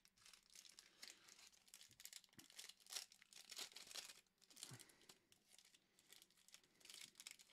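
Faint crinkling and tearing of a foil trading-card pack wrapper as it is ripped open and pulled off the cards.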